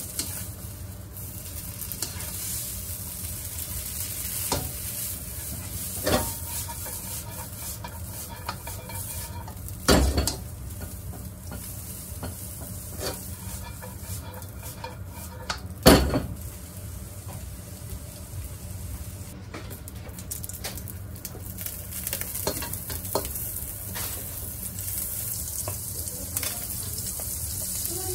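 Egg noodles sizzling and being tossed and stirred in a hot nonstick wok, with a steady frying hiss and the utensil scraping and tapping against the pan. Two louder knocks come about 10 and 16 seconds in.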